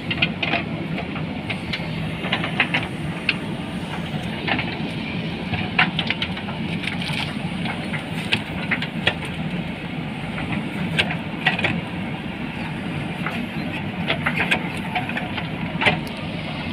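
Two JCB backhoe loaders' diesel engines running steadily under load as their backhoe arms dig out a tree stump, with frequent short sharp clanks and knocks from the working buckets and arms.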